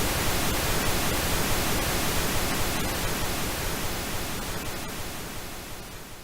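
Synthetic pink noise, a steady even hiss. It begins fading out about halfway through and grows steadily quieter.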